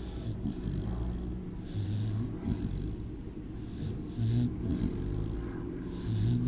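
American Pit Bull Terrier mix snoring in her sleep: nasal snores, one on each breath, about every two seconds.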